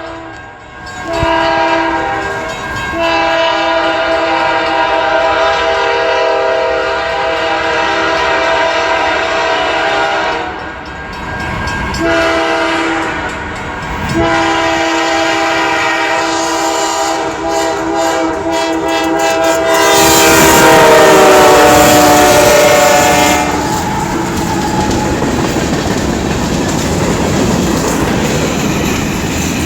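A Nathan K5LA five-chime air horn on a CSX freight locomotive sounds several long blasts with short breaks, its chord dropping in pitch as the locomotive passes at its loudest. After that the horn stops and the freight cars roll by with a steady rumble and clatter of wheels over the rail joints.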